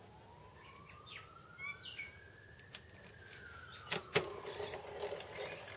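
A few sharp metallic clicks and knocks as the small metal lathe's carriage and tool post are handled with the machine stopped. The loudest are a pair about four seconds in. A faint tone slowly rises and then falls behind them.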